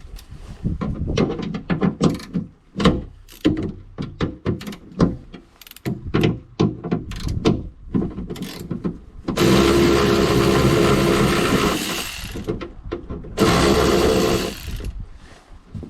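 Ratchet wrench clicking in quick, uneven runs of clicks as the boot latch's Torx bolts are undone. Then comes a longer continuous stretch of about three seconds, and a shorter one about a second later, which are the loudest part.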